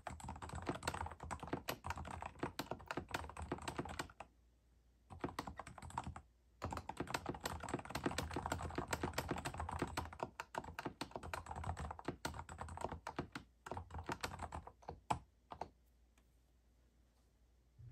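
Typing on a Kensington MK7500F QuietType Pro keyboard with silent mechanical switches: fast runs of key clicks, broken by a pause of about a second about four seconds in. The typing thins out and stops about sixteen seconds in.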